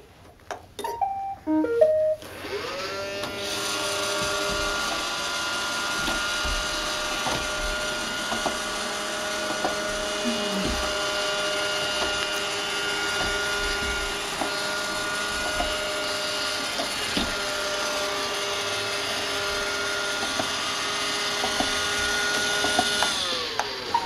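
Roomba robot vacuum playing a short tune of electronic beeps, then its motors whirring up to a steady whine with a few small clicks, and winding down near the end.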